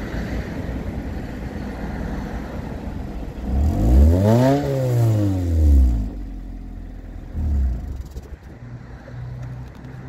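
Suzuki Swift Sport ZC31S's 1.6-litre four-cylinder engine idling through its exhaust, revved once a few seconds in, its pitch rising and falling back over about two seconds. A shorter throttle blip follows a little later before it settles back to idle.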